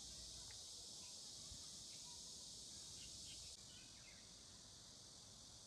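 Near silence: faint outdoor ambience with a steady high hiss and a few faint ticks, dropping slightly in level about three and a half seconds in.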